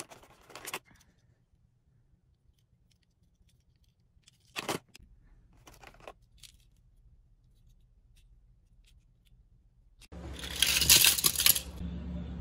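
Light clicks and clatter of small die-cast toy cars and plastic packaging being handled, with a sharper clack about four and a half seconds in. About ten seconds in, a much louder rushing noise over a steady low hum sets in and keeps going.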